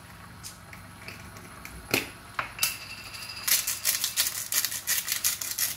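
A salt grinder being twisted: a couple of knocks about two seconds in, then a fast run of crunching clicks, about six a second, for roughly three seconds as the salt is ground.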